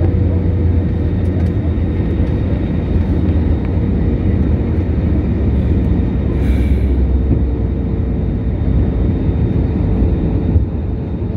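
Jet airliner cabin noise on approach: a steady low rumble of the turbofan engines and rushing air, with a thin steady hum running through it. A brief faint hiss comes about six and a half seconds in.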